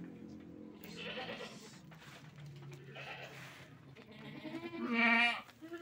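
Goats bleating: several separate calls, the loudest and longest about five seconds in.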